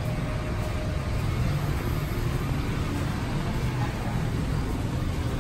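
Steady low rumble of background noise, with no distinct events standing out.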